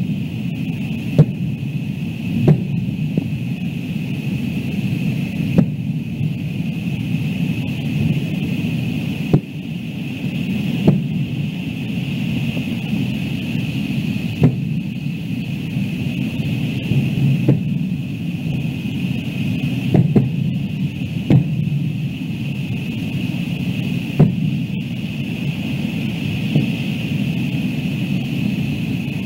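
Aerial fireworks shells bursting, about a dozen sharp bangs a few seconds apart, over a steady low rumble and a faint steady high hum.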